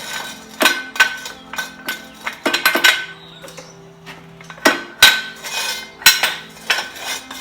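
Metal hand tools clinking and knocking against metal, about ten sharp, irregularly spaced clinks that ring briefly, with steady low tones underneath.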